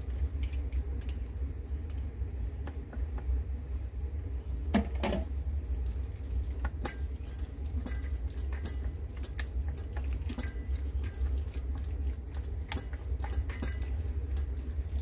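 Wooden chopsticks stirring raw squid pieces in a stainless steel bowl: irregular light clicks and taps of the chopsticks against the metal bowl, over a steady low hum.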